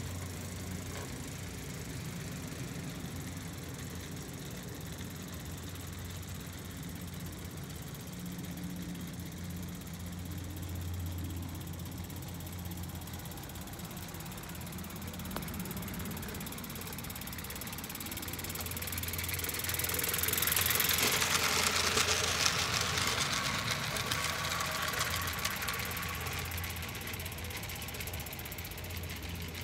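Garden-scale model train running on an outdoor track: a steady low hum throughout, with a rushing noise of the train on the rails swelling about twenty seconds in as it comes near, then easing off.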